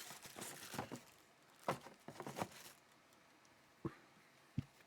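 Quiet handling noise from unboxing a camera: a few soft rustles and light taps, spaced irregularly, with two sharper little taps near the end.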